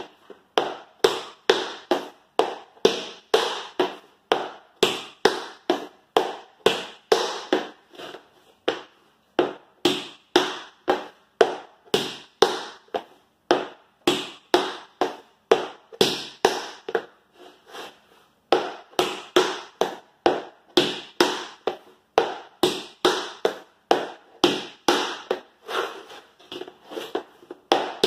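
Tap shoes' metal taps striking a wooden floor in repeated paradiddles (dig, spank, step, heel), a steady run of sharp clicks of about three to four a second, with short breaks between runs.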